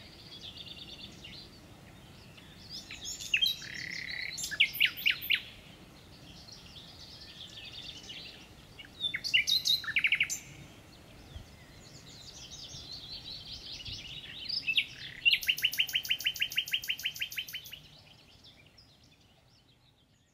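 Songbirds singing: a series of varied chirping and whistled phrases, the loudest being a fast trill of rapidly repeated notes near the end, after which the song fades out.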